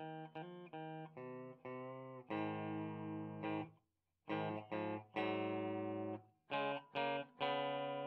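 Fender Blacktop HH Stratocaster electric guitar with humbucking pickups being played: a run of short picked chords, then longer ringing chords, broken by a brief full stop about four seconds in.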